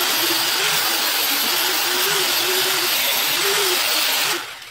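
Electric angle grinder stripping old paint off the steel trike frame. It runs with a steady whir whose pitch wavers as it bears on the metal, then dies away near the end.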